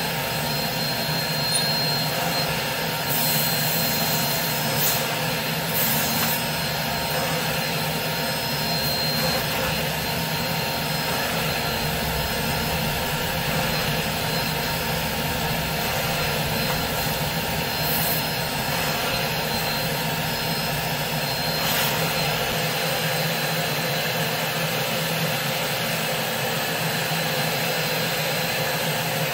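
Carpet extractor's vacuum motor running steadily with a high whine as its wand is pulled over a wool rug, with a few short rises in hiss along the way.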